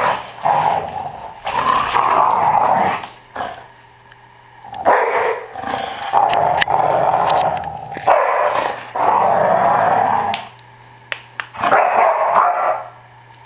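American Staffordshire terrier growling in play with a tennis ball in its mouth, in about six long bouts of one to two seconds each with short pauses between.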